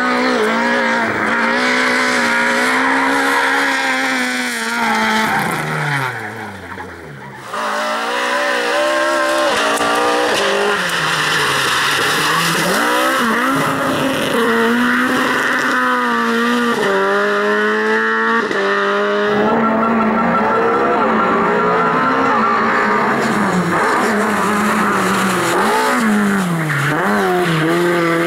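Lada rally car engines revving hard, the pitch climbing and dropping through gear changes and lifts, with tyres squealing as the cars slide. The sound cuts abruptly from one car to another, once about seven seconds in and again around nineteen seconds.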